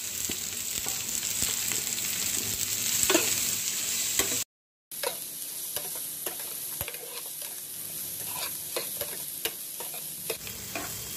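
Chopped onions sizzling in ghee in a metal frying pan, being sautéed toward golden while a metal ladle stirs them, scraping and clicking against the pan. The sound cuts out briefly about four and a half seconds in.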